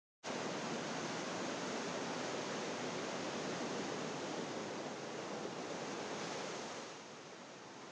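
Ocean surf washing onto a sandy beach: a steady rush of breaking waves that starts abruptly just after the start and becomes quieter about seven seconds in.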